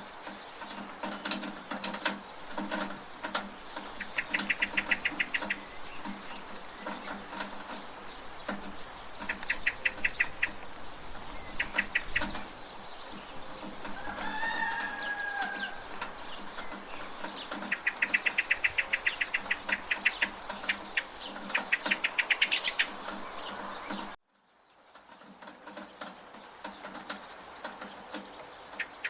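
Village ambience of steady rain and dripping from a gutter, with chickens and other birds calling in quick rattling runs and an occasional drawn-out call. About 24 seconds in, the sound cuts out abruptly, then fades back up.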